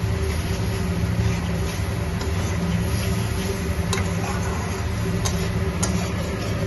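Spice paste frying in oil in a kadai while being stirred with a spatula: a steady sizzle over a low hum, with a few sharp clicks of the spatula against the pan in the second half. The paste is being fried down until the oil separates.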